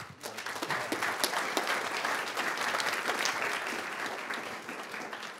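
Audience applause, building over the first second and fading toward the end.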